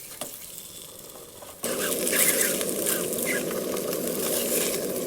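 Bologna slices frying in a crowded pan, a steady sizzle that suddenly gets much louder about one and a half seconds in.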